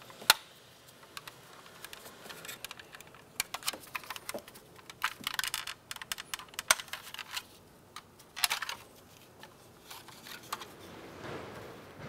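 Scattered, irregular plastic clicks and short scrapes as a pocket screwdriver pries the locking clips of a power window switch assembly apart and the switch is worked out of its plastic bezel. A sharp click comes just after the start.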